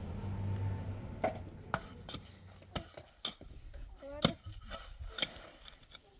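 Irregular sharp knocks and taps, about half a dozen, the loudest about four seconds in, over a low hum that fades after the first second.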